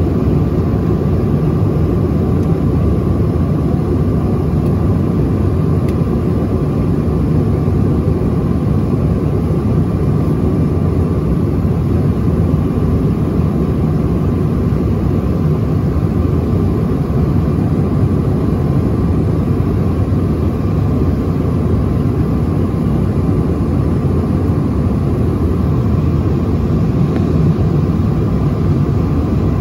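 Steady cabin roar inside a Bombardier CRJ-900 jet in flight: airflow over the fuselage and the rear-mounted turbofan engines, heavy in the low end, with a faint steady whine held throughout.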